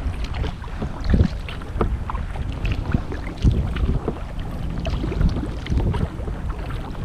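Kayak paddle strokes through lake water: a splash about once a second as the blades dip and pull, with water lapping along the hull. Wind rumbles on the microphone underneath.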